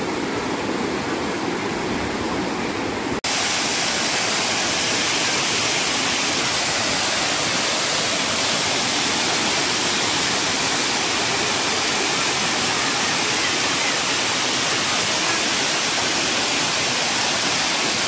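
Steady rush of water cascading over rocks; about three seconds in it cuts suddenly to a closer, louder, brighter splashing of a small waterfall pouring into a pool.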